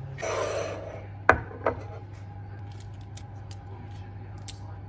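Crisp, syrup-glazed filo pastry crackling as a knife and fork cut into it, followed by two sharp clicks of the cutlery against the ceramic plate a little over a second in and a run of light ticks after.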